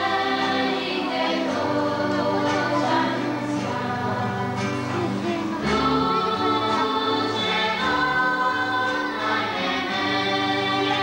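Choral music: a choir singing held notes that change every second or so, with no break.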